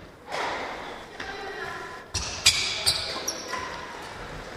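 Players' shoes on a sports-hall court floor: a thud about two seconds in, followed by a few short, sharp, high squeaks, in the hall's echo with faint voices.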